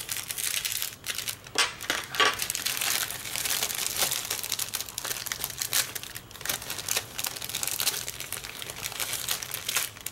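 Clear plastic bag crinkling and rustling as it is cut open and pulled off plastic model-kit sprues, with many irregular sharp crackles.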